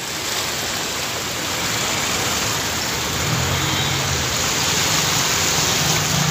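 Steady, loud hiss of heavy rain on a flooded street. From about three seconds in, the low hum of a motorcycle engine joins it as the bike rides through the floodwater.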